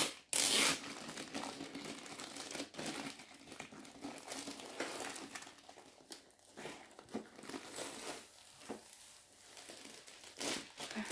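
Plastic wrapping crinkling and tearing as it is pulled off a rolled diamond painting canvas, with a loud half-second rustle at the start and then uneven crinkling.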